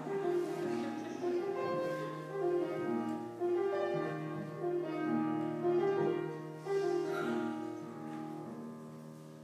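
Slow instrumental music: a keyboard melody of single held notes over a low sustained bass note, fading away over the last couple of seconds.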